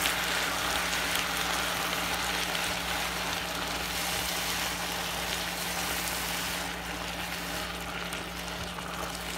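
Diced onion, green pepper and tomato sizzling in a pan as a silicone spatula stirs them, over a steady low hum. The sizzle eases slightly in the last few seconds.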